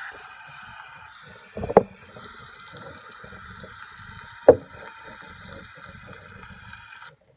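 Handling noise from a hollow plastic Deadpool-head popcorn bucket being turned in the hand, with two sharp knocks, about two seconds and four and a half seconds in. A steady high-pitched background tone runs underneath and cuts off suddenly near the end.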